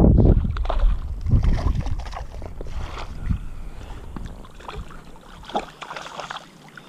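Wind gusting on the microphone dies away in the first second. Then lake water sloshes and splashes as a landing net is dipped in to scoop up a hooked fish, with a sharper splash near the end.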